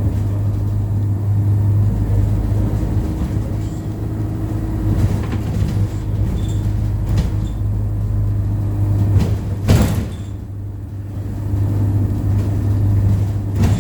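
ADL Enviro200 single-deck bus heard from inside the cabin while under way: a steady engine and drivetrain drone with light rattles. A sharp knock comes about ten seconds in, and the drone eases off briefly before building again.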